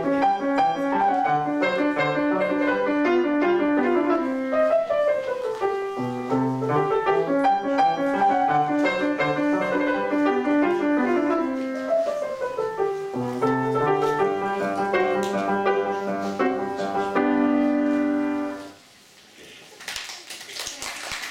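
Solo grand piano playing a quick classical passage that ends on a held chord, then stops a few seconds before the end, leaving a short pause with faint noise.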